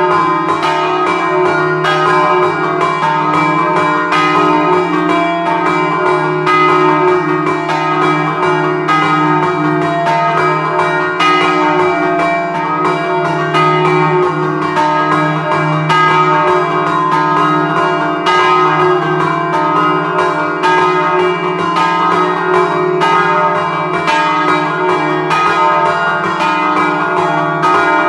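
Scampanotata on a three-bell set in E-flat, bronze church bells cast by De Poli in 1947. The bells hang still while the ringer pulls ropes tied to the clappers, striking them by hand in a fast, continuous rhythm, each stroke ringing on into the next.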